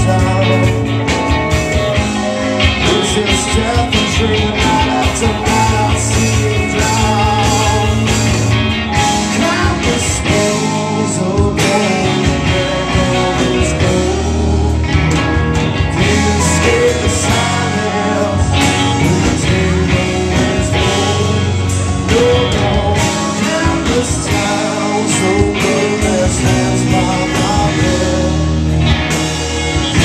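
Live rock band playing loudly: electric guitar and drums, with a vocalist singing into a microphone.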